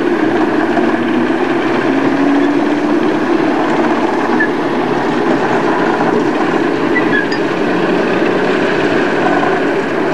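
British Rail Class 08 diesel shunter's English Electric six-cylinder diesel engine running steadily as the locomotive moves slowly along the track.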